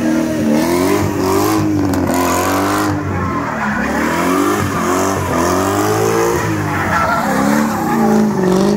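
BMW E30 drift car's engine revving up and falling back again and again as it slides through donuts, with its rear tyres squealing and smoking.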